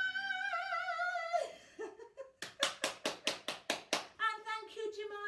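A woman's voice holds a high, wavering note for about a second and a half. Then come about ten quick hand claps, roughly six a second, and her voice starts again near the end.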